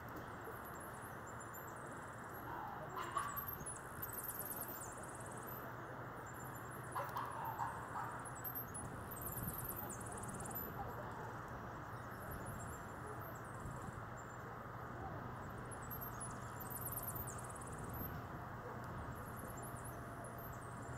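Steady outdoor background hiss with a low hum, over which short high-pitched chirps repeat. Faint brief sounds come about three seconds in and again around seven to eight seconds in.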